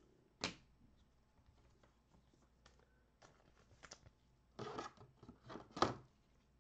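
Trading cards and plastic card holders being handled: a sharp tap about half a second in, a few soft ticks, then a cluster of louder scrapes and clicks near the end, the loudest just before it ends.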